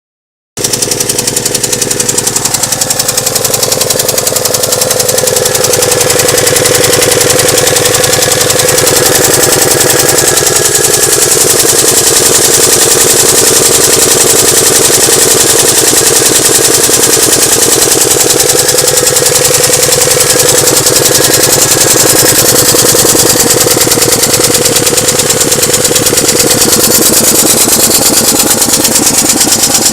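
Alfa Romeo engine running with a loud, fast, steady knocking clatter. A tone falls in pitch over the first several seconds, then the sound holds steady. This is a worsening engine fault noise that the owner says began as a light noise.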